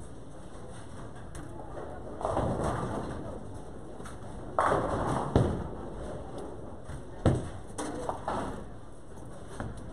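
Bowling alley din: balls rolling down the lanes and pins crashing, in bursts, with two sharp knocks about five and seven seconds in.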